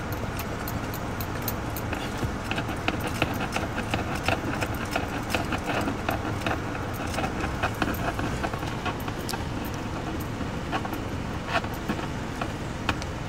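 Irregular light metallic clicks and rattles of a pedal hand-control device being fitted to a car's accelerator and brake pedals, over a steady background hum.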